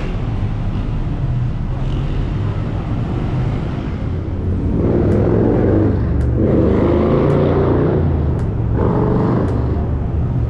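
Road traffic: a steady low rumble of engines, with vehicles passing close in three swells in the second half.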